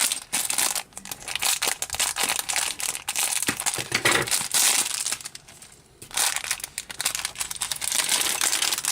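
Small plastic LEGO parts bag crinkled and torn open by hand: a dense crackling that breaks off for about a second past the middle, then resumes.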